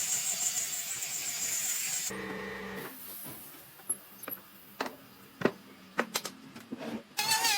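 Woodworking sounds: a steady high hiss that cuts off about two seconds in, then a quiet stretch with a handful of sharp knocks and taps. A warbling high tone comes in near the end.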